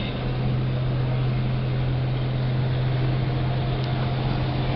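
Engine running with a steady low drone and an even rushing noise behind it.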